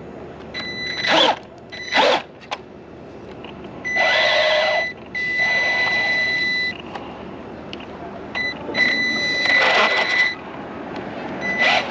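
Electric motor and gear drivetrain of a Tamiya Avante Black Special RC buggy whining in about six short throttle bursts, a steady high whine over a gritty gear noise, as the car is blipped in place. The rear wheels get little drive, which the owner puts down to a failed rear ball diff.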